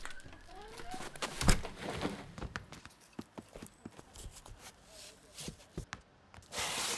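A sharp knock about a second and a half in, then a scattering of light clicks and taps as cardboard LP record sleeves are flipped through on a shelf. A short hiss comes near the end.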